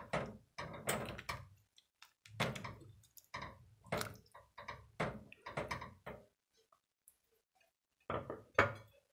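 Silicone spatula stirring a pot of chicken soup: a run of soft scraping, sloshing strokes about once a second that stops about six seconds in. Two brief sounds follow just after eight seconds.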